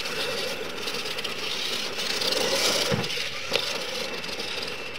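Brushless electric R/C monster trucks racing over a dirt track: a steady rushing noise of motors and tyres, with a sharp knock about three and a half seconds in.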